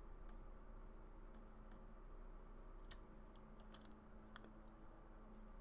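Near silence with about nine faint, scattered clicks from computer input devices, over a faint steady electrical hum.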